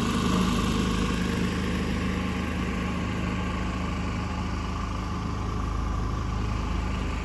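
Boat motor running steadily at a low, even speed.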